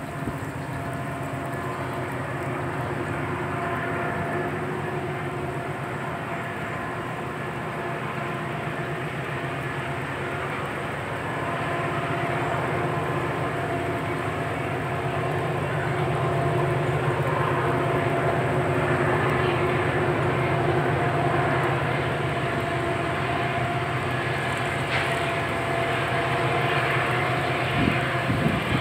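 Union Pacific SD70ACe's Nathan K5LLA five-chime horn held through the town crossings, with the diesel locomotives' engines running underneath and growing louder as the train approaches.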